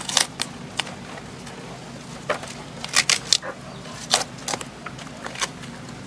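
Rotting palm-trunk fibres cracking and rustling as hands tear them apart: irregular sharp snaps, with a quick cluster around three seconds in and another about four seconds in.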